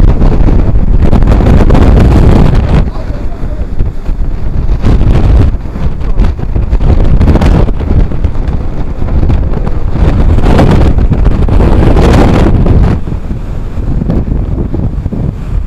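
Strong wind blasting across the microphone on a ferry's open deck in a rough sea: a loud, low rushing noise that swells and eases with the gusts, dropping back briefly a few times.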